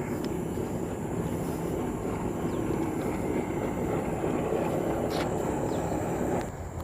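Steady low rumble of distant engine noise, which drops away near the end, with a few faint bird chirps above it.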